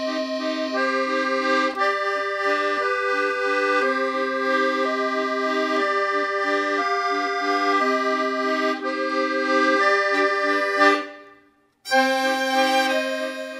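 Accordion music of held chords under a melody. It cuts out for about half a second near the end, then starts again.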